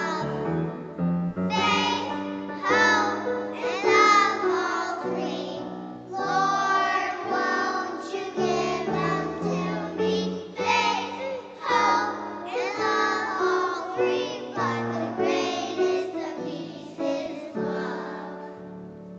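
Children's choir singing a sacred anthem with instrumental accompaniment, phrase after phrase, the sound dying away near the end as the piece closes.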